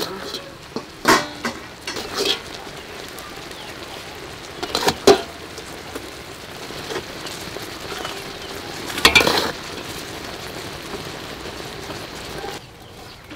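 Dark caramelised sugar sauce sizzling and bubbling around a pork leg in a metal pot, a steady hiss. Several sharp clinks and scrapes of a metal spoon against the pot break through, the loudest about five and nine seconds in.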